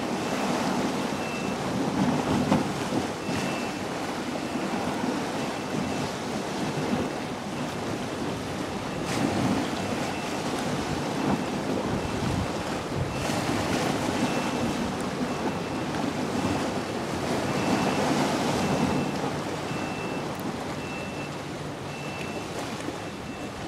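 Wind blowing across the microphone over choppy river water, a steady noisy rush that swells and eases.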